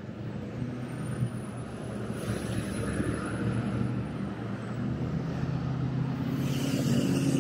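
Road traffic passing close by: cars and a semi-truck driving past, a steady engine hum with tyre noise. It grows louder toward the end as the tractor-trailer goes by.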